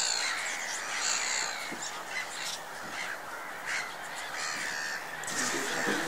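Several wild birds calling over one another, with short calls that recur every second or so over a steady chorus.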